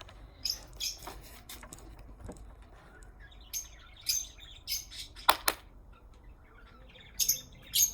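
Birds chirping in short, scattered high calls, with a sharper click about five seconds in.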